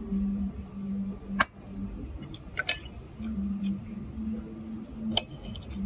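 Cutlery clinking on a plate: three sharp clinks, about a second and a half in, at about two and a half seconds, and about five seconds in. A low steady hum runs beneath them.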